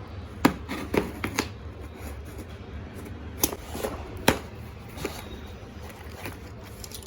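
Packaging being handled and opened by hand: a handful of sharp clicks and short crinkling rustles, irregularly spaced, the loudest about half a second in and about four seconds in.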